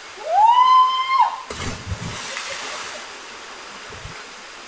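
A loud, high-pitched cry rises and then holds for about a second, and just after it comes a brief crash like a splash. The steady rush of a waterfall runs underneath.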